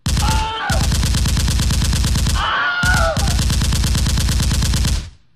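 Dubbed machine-gun sound effect: rapid automatic fire in long, even bursts, briefly broken twice, with a falling wail over it twice, stopping shortly before the end.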